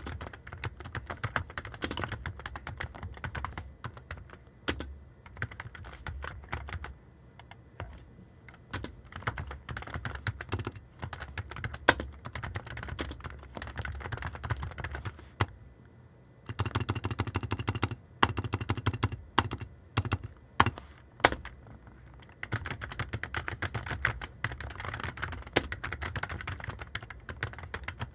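Typing on a computer keyboard: a fast, uneven run of key clicks that stops briefly about sixteen seconds in, then resumes.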